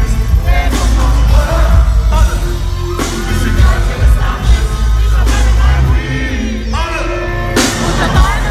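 German rap performed live over the concert PA: a heavy, booming bass beat with vocals on top.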